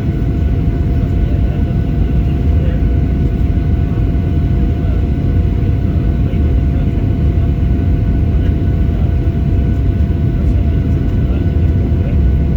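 Steady roar of a Boeing 737-800 as heard in the passenger cabin during landing: rushing air and its CFM56 jet engines, with a few faint steady tones above the low roar and no change in level.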